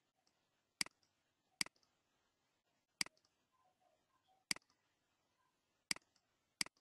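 Computer mouse button clicks: six sharp single clicks at uneven intervals while a license key is copied and pasted through menus, with near silence between them.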